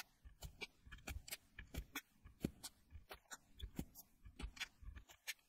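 Faint, irregular small clicks and taps, a few every second, from hands working the header pins of a small circuit board.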